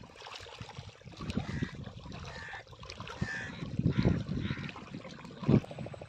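Small river waves lapping and splashing against a rocky shore in irregular surges, the loudest splash about five and a half seconds in.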